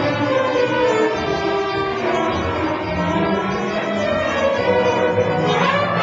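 High school philharmonic orchestra playing, many instruments sounding together in held notes.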